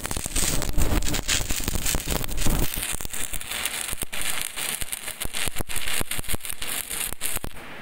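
Stick (shielded metal arc) welding with an E7018 electrode on carbon steel pipe: the arc crackles and sizzles with dense sharp pops. It cuts off suddenly near the end as the arc is broken.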